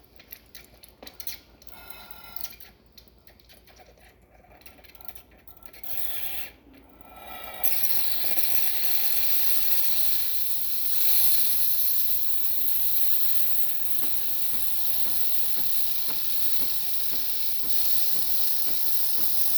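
Breville Barista Express (870XL) steam wand: a few faint clicks and short sputters, then about eight seconds in the steam opens into a strong, steady hiss that keeps going.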